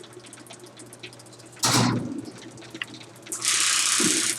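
Stanley Lightmaker 6500 garage door opener running as it raises the door, a steady motor hum, with a brief loud noise about two seconds in and a steady hiss near the end.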